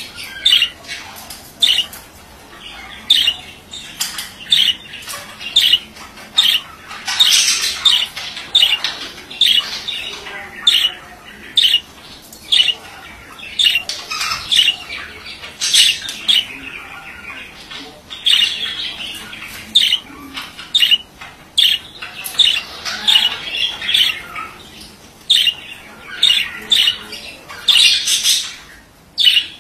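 Male budgerigar calling: short sharp squawks repeated about once or twice a second, mixed with a few longer stretches of warbling chatter.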